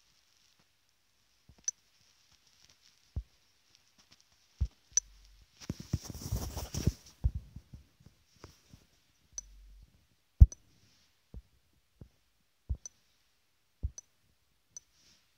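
Light taps of a fingertip on a phone's touchscreen, picked up by the phone's own microphone: sparse single clicks, roughly one every second or two, with a short rustle of handling about six seconds in.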